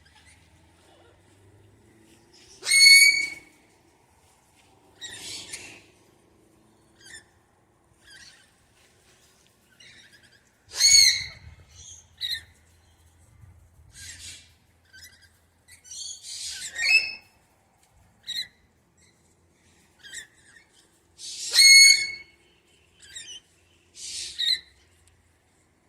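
Wild parrots calling at intervals: three loud, clear pitched calls, with shorter harsh screeches between them.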